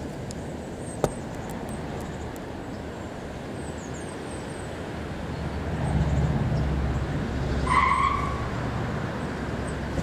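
Outdoor background noise with a low rumble that builds about halfway through, a short, loud high squeal near the end, and faint, thin high chirps.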